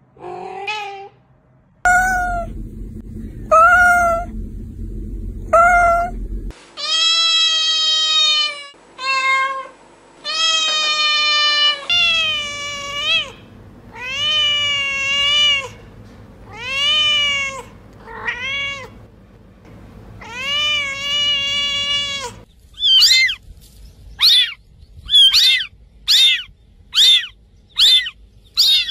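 Domestic cats meowing: a string of separate meows, first short ones, then long, drawn-out meows that rise and fall in pitch. Near the end comes a quick run of short, high kitten mews, about one a second.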